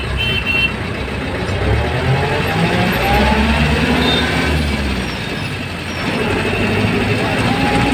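Engine and road noise of a moving motor vehicle heard from on board, a steady low rumble with the engine pitch rising and falling about two to four seconds in. A horn sounds at the start and cuts off within the first second.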